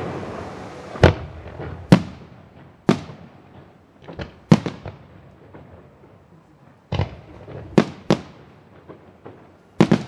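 Fireworks going off: about nine sharp bangs at irregular intervals, some in quick pairs, each trailing off in an echo.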